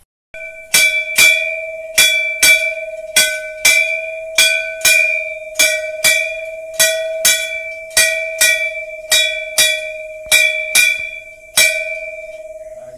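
A temple bell rung during the lamp worship (aarti), struck about twice a second, often in quick pairs, each strike ringing on in one clear tone. The striking stops near the end and the ring dies away.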